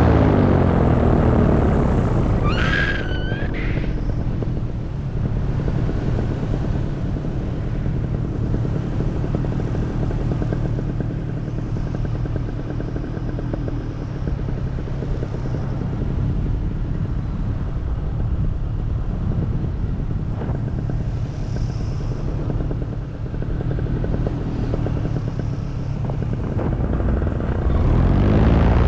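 Paramotor engine and propeller running in flight. The engine is throttled back in the first couple of seconds, runs steadily at reduced power, and is throttled up again near the end, louder and higher in pitch.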